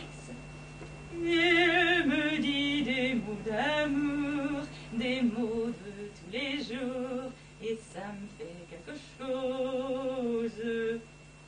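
A woman singing in an operatic style with a wide, wavering vibrato, in three phrases with short breaks between them and no instrument heard.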